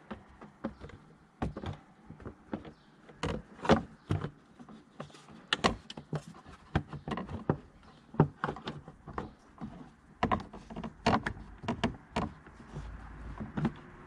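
Irregular clicks, knocks and plastic rattles as a car's plastic engine cover is handled by hand and worked loose to reach the engine air filter.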